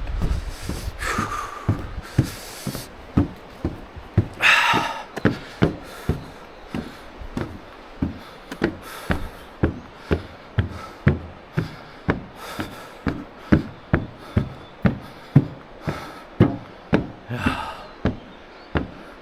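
Footsteps of a person walking briskly up a trail, a little under two steps a second, with a few loud, breathy exhales near the start and again near the end.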